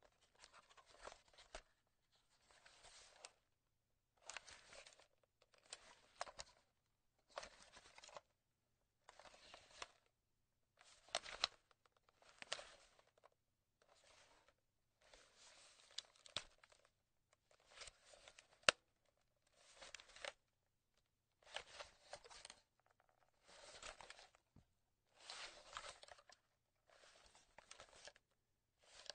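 A camera being handled, faintly: a string of short rubbing and rustling bursts about one a second, with a few sharp clicks. The loudest click comes about two-thirds of the way through.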